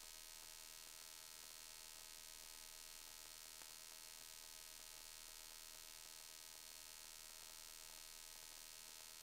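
Near silence: only a faint, steady electrical hum and hiss.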